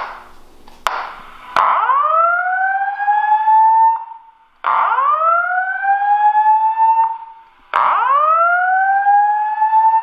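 Voice evacuation fire alarm speaker, driven by a Wheelock SafePath panel, sounding the whoop evacuation tone: three rising sweeps, each climbing for about two and a half seconds with short gaps between. The tone signals the system in alarm, ahead of the spoken evacuation message. Two sharp clicks come within the first second.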